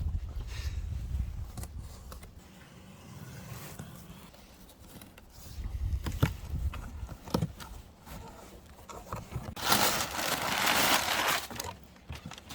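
A cardboard shipping box being opened by hand: scraping, crinkling packaging and a few sharp knocks, then a loud tearing about ten seconds in that lasts about two seconds.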